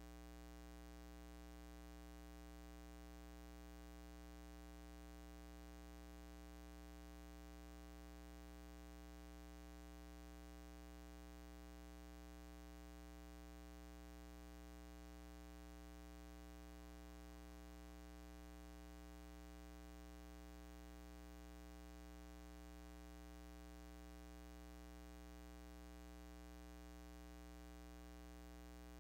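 Near silence except a steady low electrical hum with buzzing overtones, unchanging throughout.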